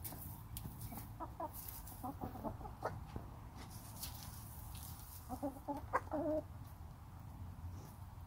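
Backyard hens clucking in short bursts of soft calls, with a louder run of clucks about five to six seconds in.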